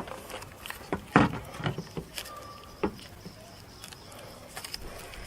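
Scattered light clicks and knocks from parts being handled, the sharpest about a second in.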